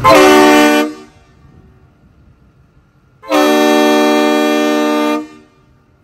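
Kleinn triple-trumpet air train horn, fed by an onboard air system, sounding two blasts: a short one at the start, then a longer one of about two seconds. Each is one steady chord that cuts off cleanly.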